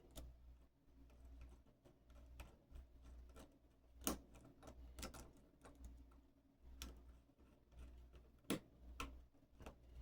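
Faint, irregular light metal clicks and taps as parts of a Schlage lock cylinder are handled and a cap is screwed onto it by hand.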